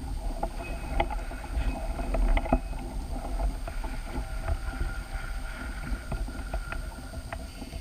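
Scattered clicks and knocks from handling fishing gear aboard a small boat, over a steady low rumble of wind on the microphone.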